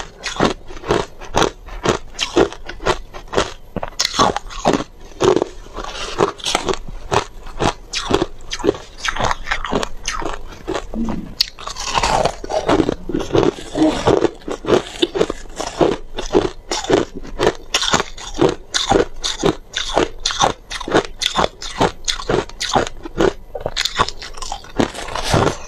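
Crushed ice being bitten and chewed close to a clip-on microphone: a steady run of loud, sharp crunches, a few a second.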